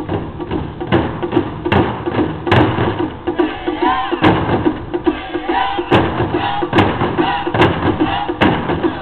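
Miyake-style taiko drumming: barrel-shaped taiko drums on low stands struck with wooden sticks by several players. Heavy unison strokes land about every 0.8 s over a quick, steady underlying beat, with a few shouted calls from the drummers around the middle.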